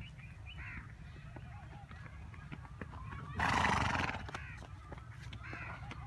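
A horse sounds once, a loud, noisy call lasting about a second a little past halfway through. Light clicks and a couple of faint chirps sound around it.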